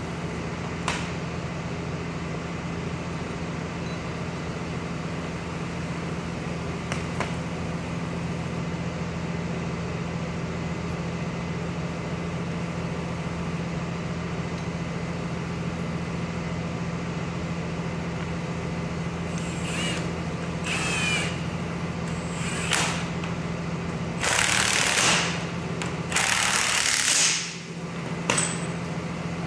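Cordless impact driver running the bolts of a retaining plate onto an excavator pin end in short bursts, a few brief ones and then two longer, louder runs near the end, over a steady low engine hum.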